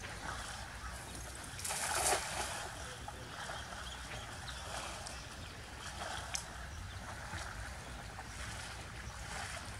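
A cast throw net hitting shallow pond water with one short splash about two seconds in. A steady low rumble runs underneath.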